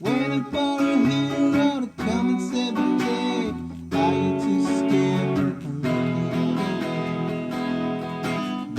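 Music led by a strummed acoustic guitar, with a melody line that bends in pitch; it briefly drops out about two seconds in and again near four seconds.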